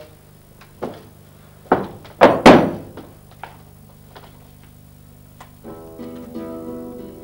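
A few thumps and knocks in the first three seconds, the loudest about two and a half seconds in. Then, near the end, an acoustic guitar starts playing a quiet plucked tune.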